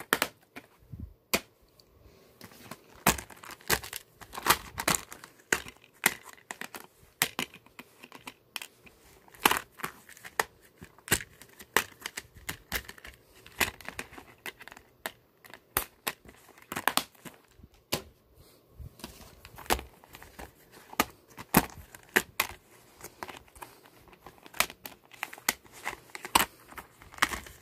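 Plastic DVD cases being handled and opened, giving irregular sharp clicks and snaps with handling noise in between.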